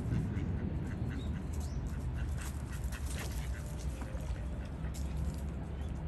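Eastern spot-billed ducks quacking over a steady low rumble.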